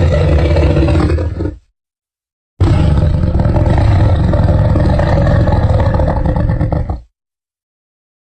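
Two loud creature roar sound effects, separated by complete silence: the first stops about a second and a half in, the second starts a second later and runs about four and a half seconds before cutting off.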